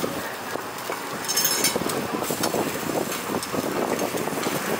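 Kitchen noise at a flat-top griddle: a steady sizzle with a metal spatula scraping and tapping on the hot plate.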